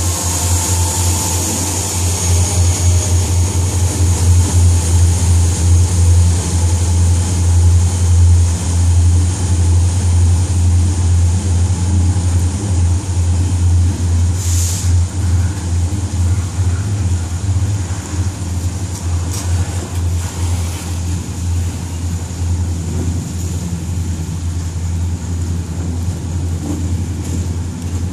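Double-stack intermodal container train rolling through a grade crossing: a steady, loud low rumble of the cars' wheels on the rails.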